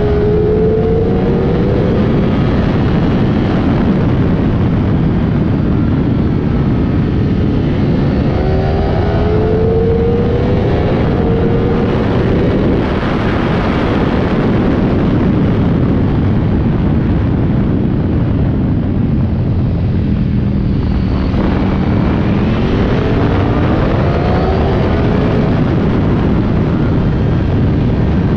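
Onboard a Ducati Streetfighter V4 SP at track speed: heavy wind rush over the microphone under the V4 engine, which revs up hard three times, rising in pitch on each pull.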